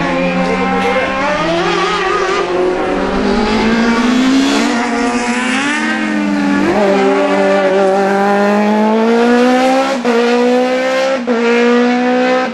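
Open-cockpit sports prototype race car engine revving hard at racing speed. Its pitch falls and climbs again through the corners, then rises in steps with quick drops at the upshifts near the end.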